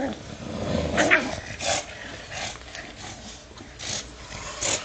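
Dogs at play over a toy: a short growl about a second in, then a few short breathy bursts.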